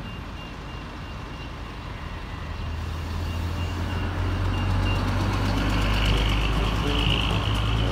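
Tour coach bus engine running as the coach pulls through a turn and passes close by. Its low rumble grows steadily louder, and a hiss joins it for a couple of seconds near the end.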